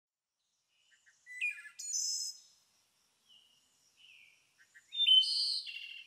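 Small birds calling: two clusters of high chips and buzzy notes, one about a second and a half in and a louder one near the end, with faint single notes between.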